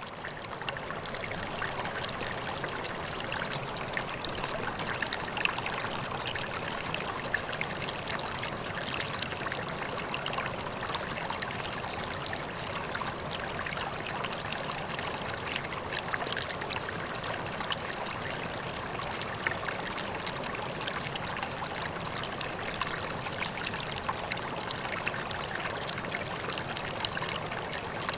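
Koi pond water running and splashing steadily, a constant rush speckled with small droplet splashes.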